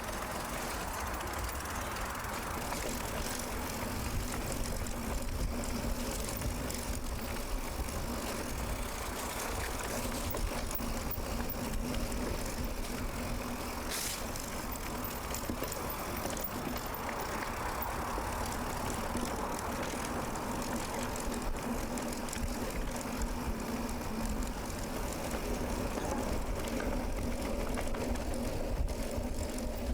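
Mountain bike rolling along a forest dirt road: steady tyre and drivetrain rattle with a low rumble on the camera microphone, and one brief click about halfway through.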